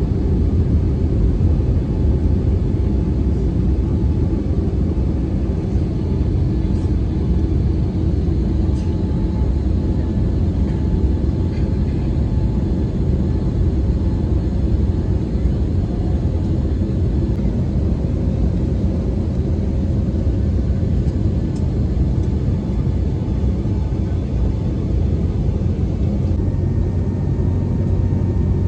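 Airbus A320neo cabin noise in the climb after takeoff: a steady low rumble of engines and airflow, heard inside the cabin from a window seat by the wing.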